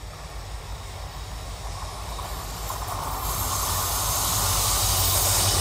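Two diesel locomotives hauling a passenger train approach, their low engine rumble and the hiss of wheels on rail growing steadily louder.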